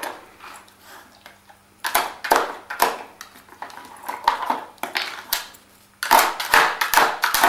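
Hard plastic clattering and clacking from a Nina Ottosson Dog Casino puzzle as a dog noses and paws at its sliding bone-shaped drawers, in two bursts of rapid knocks, about two seconds in and again near the end, with softer clicks between.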